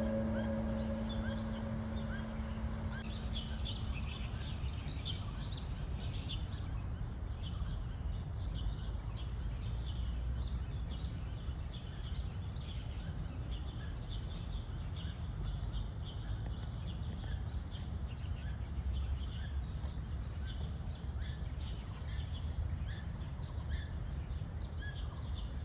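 Small birds chirping in many short calls all through, over steady low background noise.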